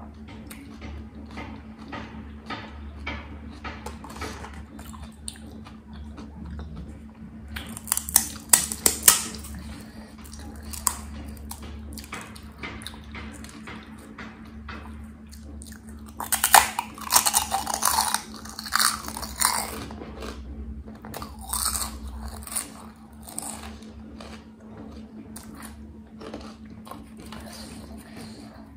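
Close-miked chewing and crunching of crisp pani puri (golgappa) shells: steady small wet chewing clicks, a few loud sharp crunches about eight seconds in, and a longer run of crisp crackling a little past the middle.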